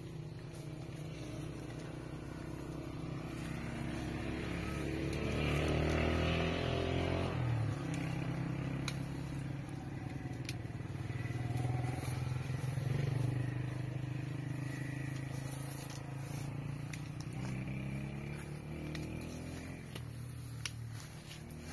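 Engine running, its pitch shifting and its level swelling and easing, loudest about six seconds in and again about halfway through.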